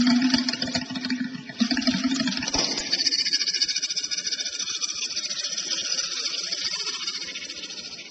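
Outdoor ambience. A low steady droning tone, broken briefly about one and a half seconds in, stops about two and a half seconds in. It gives way to a dense, high-pitched hissing buzz that slowly fades.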